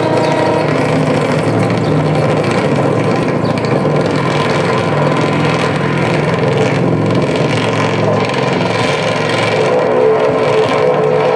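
Experimental noise music played live on tabletop electronics and tape: a loud, dense, steady wall of distorted noise over a low drone, with a higher sustained tone coming forward near the end.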